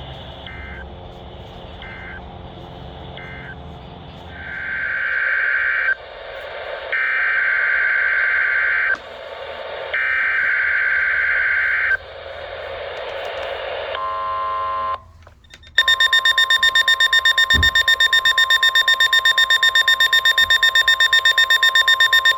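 NOAA Weather Radio / Emergency Alert System SAME data bursts: three short, quiet bursts, then three longer, loud screeching bursts about a second apart. After a short pause comes a loud, steady alert tone with a fast flutter, the weather radio's alarm tone.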